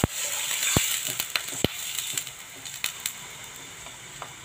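Water poured into a hot frying pan of sautéing vegetables: a burst of sizzling and crackling that dies down over a couple of seconds as the water cools the pan, with two sharp ticks within the first two seconds.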